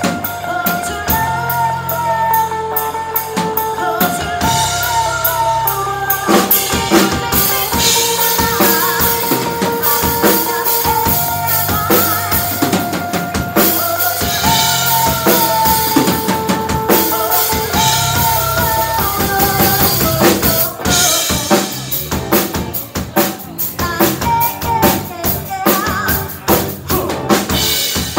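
Live band playing, with a full drum kit driving it (kick drum and snare prominent) under electric guitar and bass guitar and a held melody line. The drums break briefly about two-thirds of the way through, then come back choppier.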